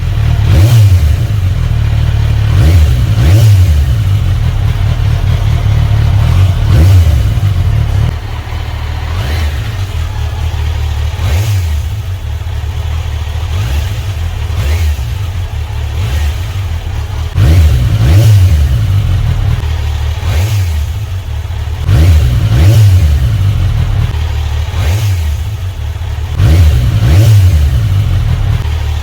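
Kawasaki Versys 1000 SE's inline-four engine running at idle through a slip-on exhaust, with the throttle blipped repeatedly so the exhaust note rises and falls every few seconds.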